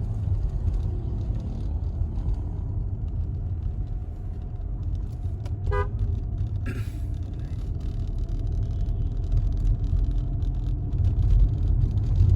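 Car driving along a road with a steady low engine and road rumble. A brief car horn toot about six seconds in, followed moments later by a short hiss.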